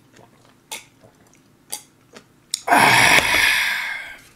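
A few small mouth clicks, then a loud breathy blast of air from a person close to the microphone, starting suddenly a little over halfway through and fading over about a second and a half.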